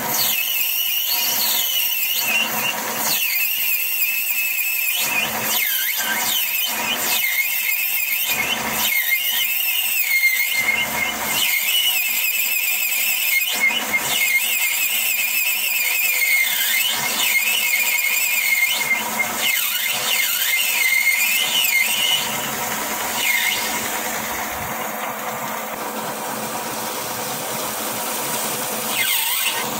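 Metal lathe cutting a brass valve stem lock nut, the tool squealing at a high, wavering pitch over the steady run of the machine. About 22 seconds in the squeal dies away and the lathe runs on more quietly.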